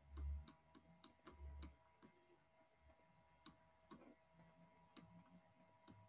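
Near silence with faint quick clicks, several a second at first and sparser after about two seconds, and two soft low thumps within the first two seconds.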